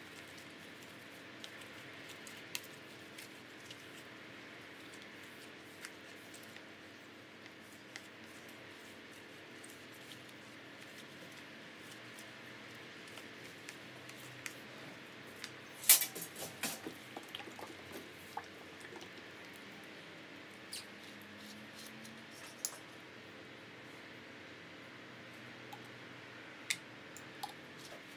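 A cloth being wiped over a latex drysuit neck seal by gloved hands, with scattered small clicks and a cluster of louder knocks about halfway through.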